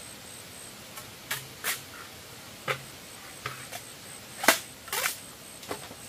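A series of sharp, irregular snaps and clicks, about nine in all, the loudest about four and a half seconds in.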